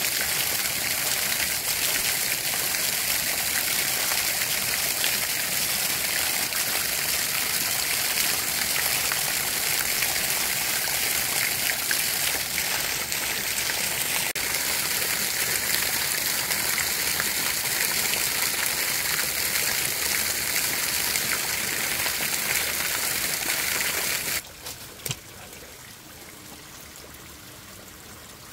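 Running water of a small stream, a steady close rush that drops suddenly to a much quieter flow about 24 seconds in, with a couple of light knocks just after.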